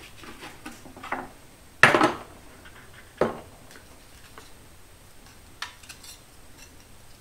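Steel dado-stack blades and shims clinking together as they are picked out of their case and handled. There is a loud clank about two seconds in and another just after three seconds, then lighter metal ticks.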